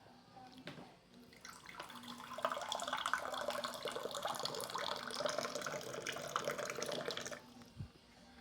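Water running from a tap into a glass for about six seconds, then shut off suddenly. A soft thump follows near the end.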